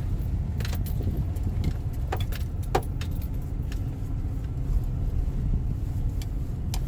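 Inside a moving car: a steady low road-and-engine rumble, with a few sharp light rattling clicks in the first three seconds.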